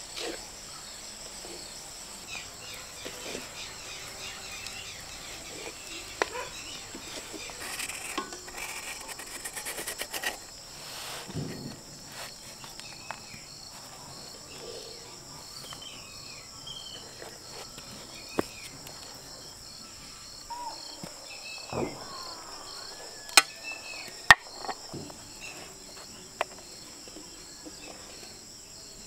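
Insects, crickets by their sound, chirping in a steady high continuous trill, with a few sharp clicks or knocks scattered through, two louder ones close together past the middle.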